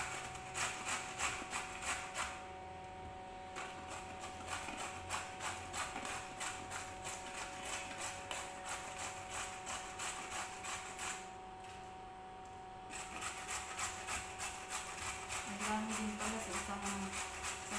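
Carrot being grated on a metal box grater: quick, repeated rasping strokes, with two short pauses.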